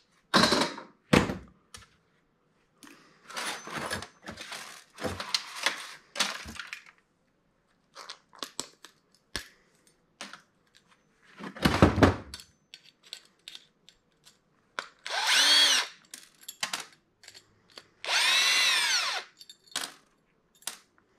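Cordless drill-driver run in two short whirrs near the end, each rising and then falling in pitch as the trigger is squeezed and released. Before that, clatter and knocks of metal parts and wire being handled, with loud knocks near the start and just past halfway.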